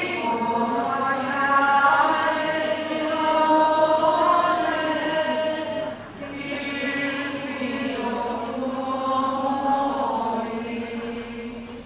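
A group of voices singing a slow religious chant with long held notes, in two phrases with a brief break about six seconds in.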